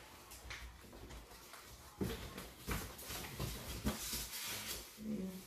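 Cardboard shipping box being handled and opened at the top: scattered light knocks and scrapes of cardboard.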